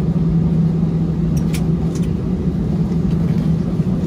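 Steady low droning hum of an Airbus A320-200 airliner heard from inside the passenger cabin just after landing. A couple of faint clicks sound about a second and a half in.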